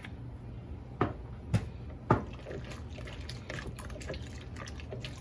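A spatula stirring diced cucumbers and red onion in a water, sugar and vinegar dressing inside a plastic container: a run of small wet clicks and slops. It is preceded by three sharp knocks, about half a second apart, starting about a second in.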